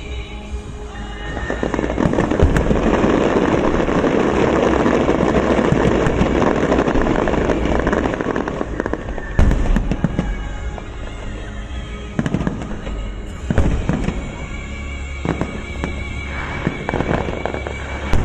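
Fireworks display: a dense, continuous crackling barrage for several seconds, then separate loud bangs and scattered crackling, with music playing underneath.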